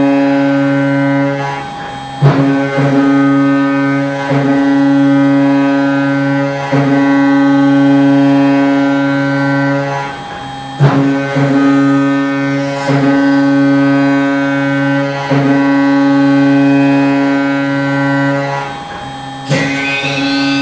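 Background music: sustained droning tones over a steady low note, changing every two seconds or so, with a rising sweep near the end.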